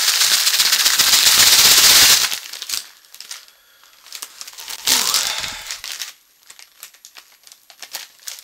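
Plastic snack packet being shaken hard for about two seconds to mix in its seasoning, the snack pieces rattling inside and the plastic crinkling, followed by a shorter shake around five seconds in and then lighter crinkling of the packet.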